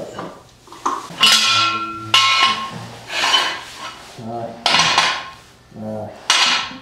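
Hydraulic floor jack being pumped under a Power Wheels toy car: several loud metal clanking strokes with sharp starts, about a second or two apart.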